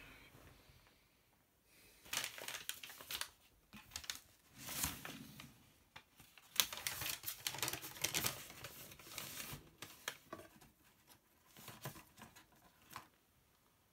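Rummaging by hand through a bedside drawer, with paper rustling and crinkling in irregular bursts and a few sharp clicks. It starts about two seconds in and dies away near the end.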